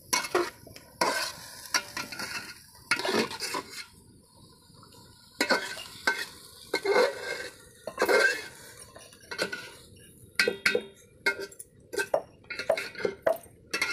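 A metal ladle stirring and scraping vegetables in an aluminium pot as they fry, with a light sizzle. The scrapes come in irregular strokes with short pauses between them.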